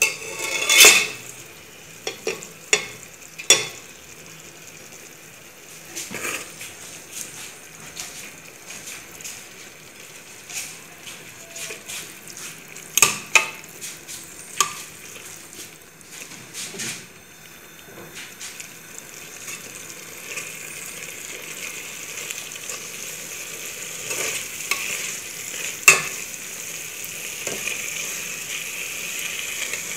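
Shredded chicken being stirred into an ají amarillo base frying in a metal pot: a spoon knocks and scrapes against the pot in sharp clicks, and a steady sizzle builds up in the second half.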